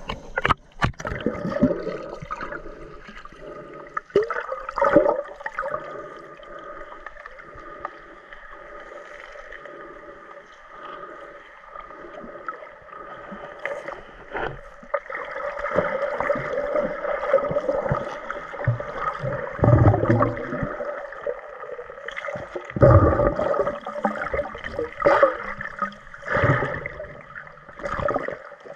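Muffled underwater sound picked up by a submerged camera: water gurgling and bubbling, with irregular knocks and low thumps as the snorkeler stirs up the sandy, seagrass-covered bottom, the loudest thumps about two-thirds of the way in.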